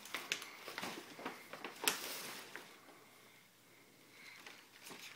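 Soft rustling of a paper gift bag and wrapping paper being handled, with a few light taps and one sharper tap about two seconds in.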